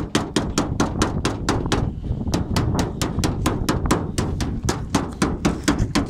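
Hammer tapping gently and rapidly along the seam of a sheet-metal duct cladding panel, about five even strokes a second. It is kept gentle because the thin sheet bends easily.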